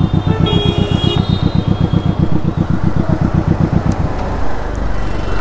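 Kawasaki Ninja motorcycle engine running at low speed with a fast, even throb that turns into a smoother rumble about four seconds in. A vehicle horn sounds briefly about half a second in.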